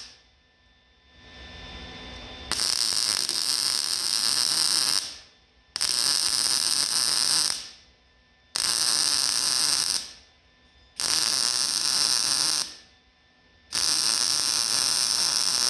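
MIG welder arc crackling in five bursts of about two seconds each, with short pauses between, as a cut-out section is stitch-welded back into a steel truck frame.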